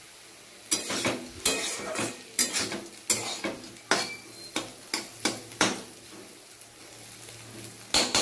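A spatula scraping and knocking against a pan while bitter gourd and potato are stir-fried to crisp them, over a faint sizzle. A run of quick strokes from about a second in, a pause, then one more stroke near the end.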